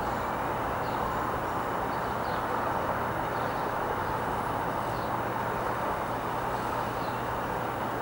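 Steady wash of distant city traffic noise heard from a height, an even continuous hum of road traffic with no single vehicle standing out. Faint short high chirps come and go through it.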